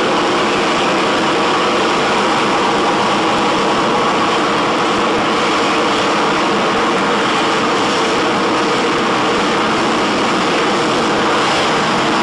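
Harrier GR7 jump jet's Pegasus vectored-thrust turbofan running at high power: loud, steady jet noise with faint steady tones in it, holding level throughout.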